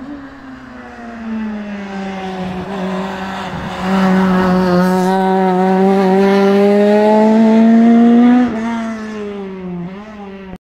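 Rally car engine at full throttle as the car passes and climbs away. The note rises slowly and grows loud about four seconds in, then drops suddenly about eight and a half seconds in and fades as the car goes off up the road.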